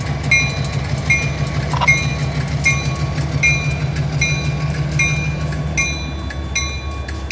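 EMD SD40-2 and GP15-1 diesel locomotives rumbling slowly past at low throttle, the low rumble easing about six seconds in. Over it the road-crossing warning bell rings steadily, a strike about every three-quarters of a second.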